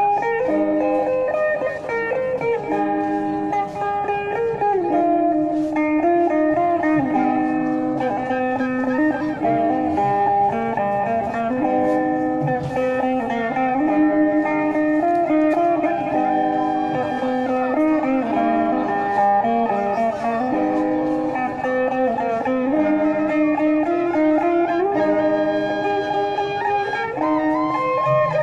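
Sape, the boat-shaped plucked lute of Borneo, playing repeating melodic phrases together with a suling bamboo flute holding long notes that slide between pitches.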